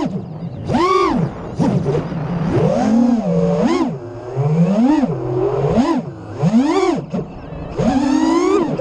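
FPV racing quadcopter's brushless motors and propellers whining, the pitch swooping up and down again and again with each throttle punch, over a rush of prop wash and wind, heard from the GoPro mounted on the drone. Near the end the pitch climbs in one longer rising whine.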